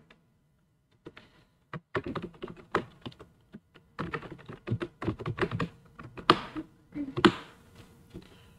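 Typing on a computer keyboard: a quick, uneven run of keystrokes, with a couple of harder key presses near the end.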